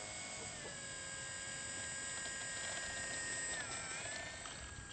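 Electric motor and propeller of a HobbyKing P-26 Peashooter foam RC model running at low throttle as it taxis, a steady whine. The pitch drops about half a second in, then dips briefly and comes back up near the end as the throttle is worked.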